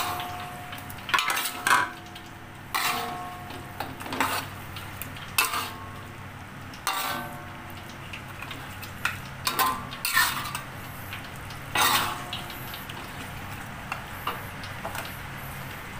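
Metal spatula scraping and knocking against a stainless steel wok as fried chicken pieces are stirred into thick chilli sauce, in irregular strokes, with the wok ringing briefly after the harder knocks. A low steady hum runs underneath.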